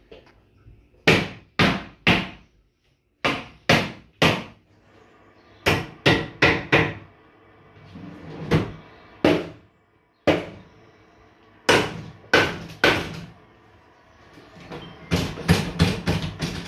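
Kitchen cupboards being smashed: hard blows in runs of three or four about half a second apart, with a faster flurry of hits near the end.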